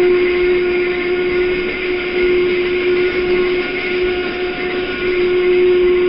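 Steam locomotive whistle blowing one long, steady note over a hiss.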